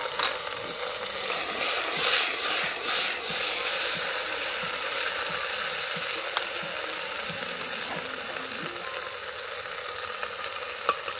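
Potatoes and taro sizzling as they fry in a metal pot over a wood fire, with a ladle stirring. The sizzle swells for a second or so about two seconds in, and there are a couple of light sharp taps later on.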